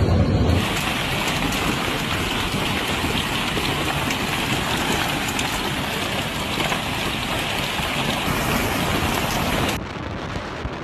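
Heavy hailstorm: a dense, steady downpour of hailstones striking the ground, parked cars and buildings, a constant hiss of many small impacts. Near the end it cuts to quieter wind noise.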